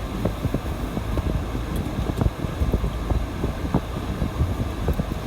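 Wind buffeting the microphone, with short low thumps over the low rumble of a four-wheel drive on beach sand.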